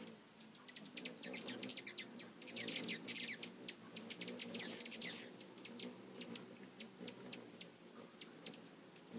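Hummingbirds squabbling at a nectar feeder: rapid, sharp chip notes throughout, thickening into a burst of excited chattering squeals from about one to five seconds in.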